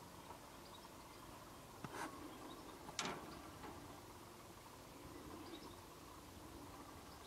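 Quiet outdoor ambience with faint, distant bird chirps, broken by a few sharp clicks about two and three seconds in, the loudest near three seconds.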